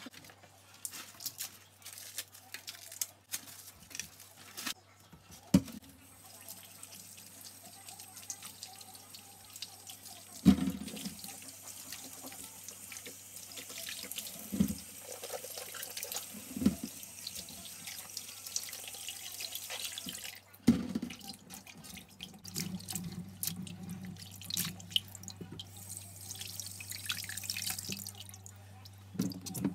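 Kitchen tap running into a stainless steel sink as fruit and vegetables are rinsed under the stream, with a few sharp knocks as produce and a bowl are handled. Small clicks and rustling come first, and the water starts about six seconds in.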